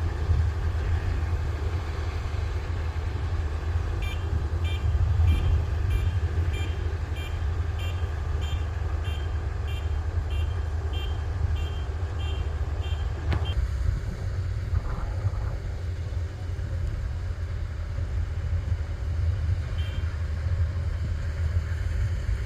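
Kubota rice combine harvester's diesel engine running steadily with a low drone. A high-pitched warning beep sounds about twice a second for roughly nine seconds, starting about four seconds in, and a single sharp click comes just after the beeping stops.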